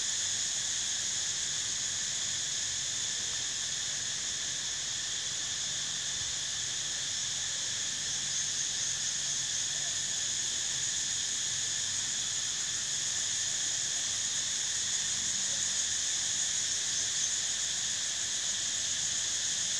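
A steady insect chorus: a continuous high-pitched drone in several pitches that holds without a break.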